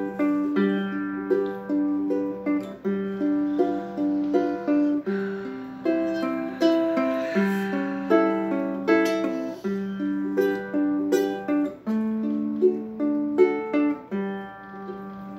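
Ukulele playing an instrumental break alone: chords plucked in a steady rhythm with a melody on top, the last chord left to ring out near the end.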